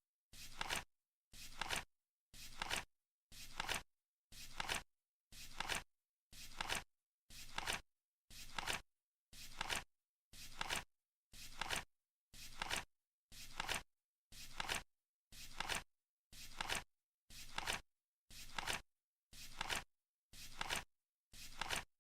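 Flip-clock timer ticking off the seconds: one short flap-like tick about once a second, evenly spaced. Each tick swells briefly and ends sharply, with silence in between.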